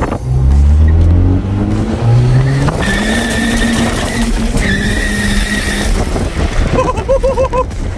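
Honda B20 engine under hard acceleration, heard inside the car: the revs climb steeply, drop at a gear change about a second and a half in, climb again, then hold steady with a high whine over the top. A short fluttering sound comes near the end.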